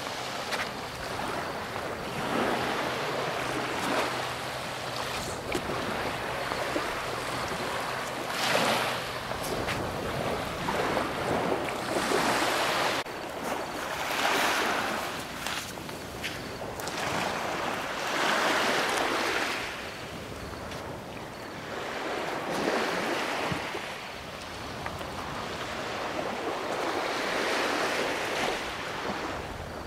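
Sea waves washing in and surging every few seconds, with wind buffeting the microphone. A faint steady low hum runs under the first half and stops about halfway through.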